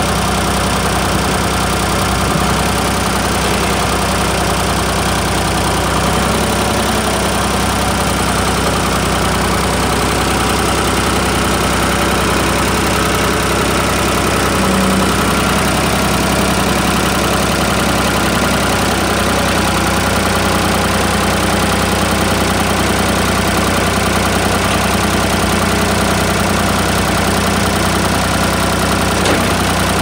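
Tractor front-end loader's engine idling steadily, its speed unchanged throughout.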